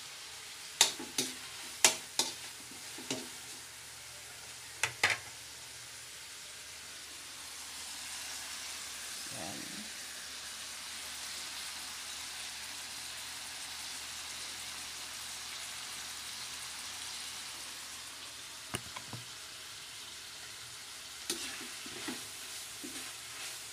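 Metal spatula knocking and scraping against a wok, with food sizzling in hot oil. The sharpest knocks come in the first few seconds, then the sizzle goes on steadily through the middle, and the spatula starts clattering again near the end.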